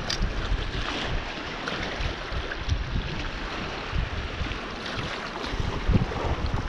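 Wind buffeting the microphone in uneven gusts over a steady rush of water, the gusts growing stronger near the end. A couple of sharp clicks right at the start.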